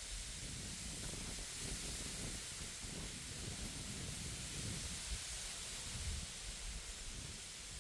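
Wind blowing through reeds: a steady rustling hiss, with low gusts of wind buffeting the microphone.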